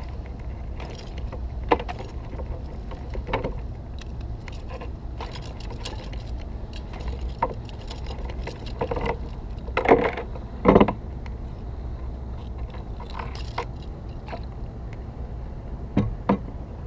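Steady low wind rumble on the microphone, with scattered knocks and rattles against a kayak as a hooked cobia is handled on board; the loudest two come about ten seconds in, and another close pair near the end.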